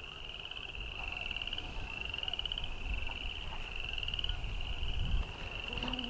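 Frogs calling: a chorus of rapid, pulsed trills, each about a second long, repeating one after another, with a low rumble about five seconds in.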